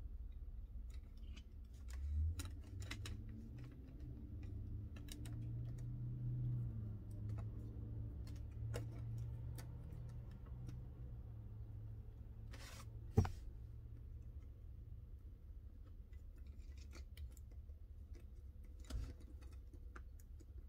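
Light clicks and taps of a die-cast toy funny car being handled, its hinged flip-up body lifted and moved, with one sharper click partway through, over a low steady hum.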